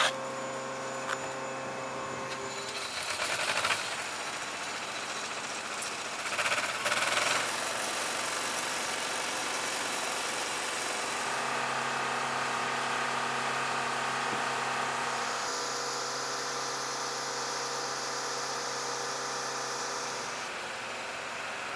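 Motorized ground equipment running with a steady hum that shifts in pitch a few times, with two short rattling bursts about three and six and a half seconds in.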